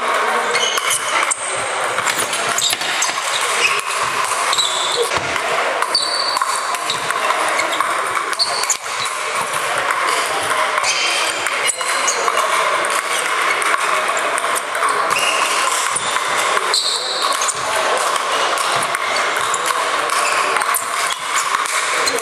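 Ping pong balls clicking off the table and off sandpaper bats in rallies, with more ball clicks from neighbouring tables over a steady babble of voices in the hall.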